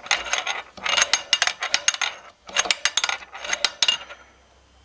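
Bursts of sharp metallic clicking from a scooter crankshaft and connecting rod being worked by hand, the rod knocking against its big-end journal through its play: the worn lower end of the connecting rod. The clicking comes in four quick bursts and stops about four seconds in.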